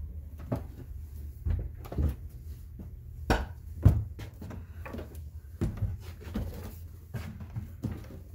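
A string of irregular knocks and thumps on wood, about a dozen over several seconds, the loudest pair a little past the middle, over a steady low rumble.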